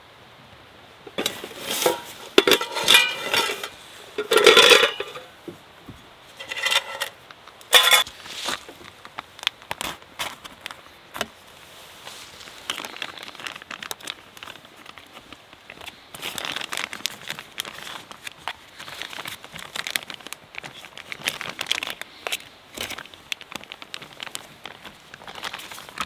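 Clinking and clattering of objects being handled, loudest and most frequent in the first eight seconds, then softer clicks and rustling.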